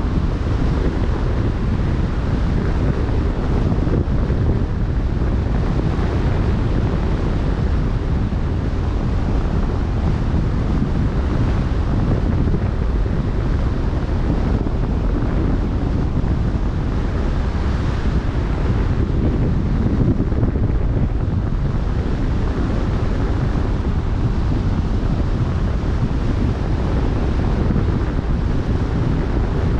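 Wind buffeting the microphone in a steady low rumble, over the rush of choppy open-sea waves.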